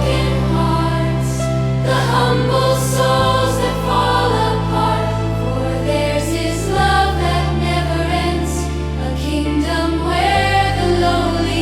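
Gospel worship music: piano and wordless choir voices over held low notes that change chord about every three and a half seconds.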